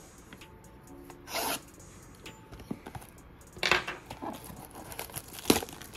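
Trading-card blaster box packaging being handled: a few short rasping scrapes and rubs, with a sharp tap near the end.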